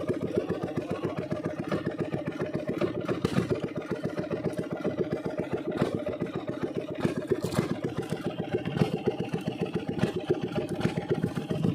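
Small fishing boat's engine running steadily with a fast, even beat, as during trolling.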